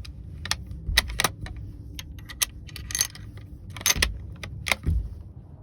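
Gear being handled in a hunting blind: a run of sharp clicks and small metallic rattles, with a few soft low thumps among them.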